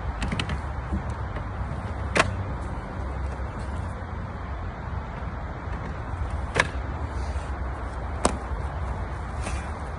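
PVC tongue-and-groove compost-bin panels knocking and clicking as they are slotted into the posts: a few sharp, separate knocks, a small cluster right at the start, then single ones about two, six and a half, eight and nine and a half seconds in, over a steady low rumble.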